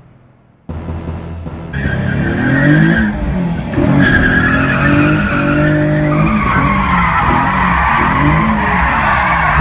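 Sports car driven hard, heard from inside the cabin: the engine revs rise and fall repeatedly through shifts and corners while the tyres squeal loudly through the turns.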